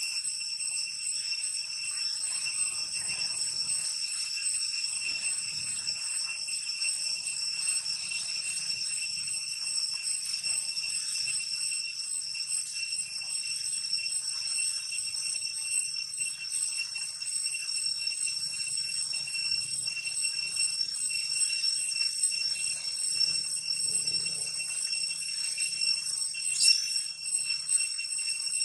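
A steady, shrill insect chorus that rings without a break at one unchanging pitch, with a fine flutter. A brief louder click comes near the end.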